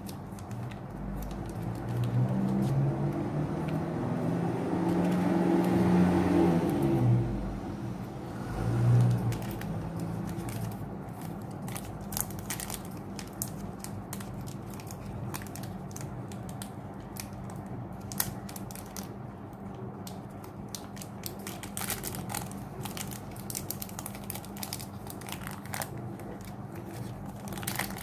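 Foil Pokémon booster pack wrapper being handled and pressed, crinkling and crackling in many small sharp clicks through the second half. Over the first nine or so seconds a low drone swells and fades, louder than the crinkling.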